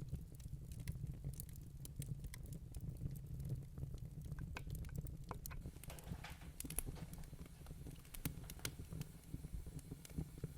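Wood fire burning in a fireplace, crackling with scattered sharp pops over a steady low rumble of flame. There is a short hiss about six seconds in.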